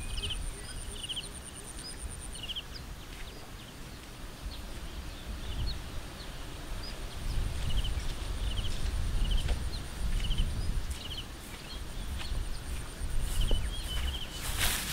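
Outdoor field ambience: short repeated chirps about once a second, a thin steady high whine that is clearest in the first two seconds, and wind rumbling on the microphone. Near the end there is a burst of rustling as someone walks through tall grass right past the microphone.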